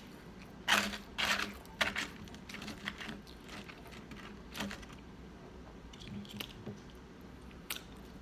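Close-up crunchy bites and chewing of fried chicken tenders: a string of sharp crunches, several in the first three seconds and a few more spaced out after.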